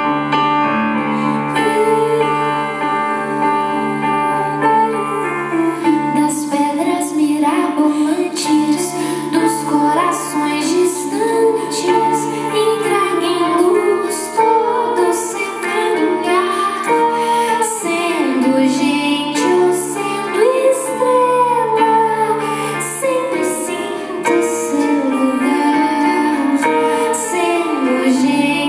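A woman singing into a microphone, accompanied by a grand piano.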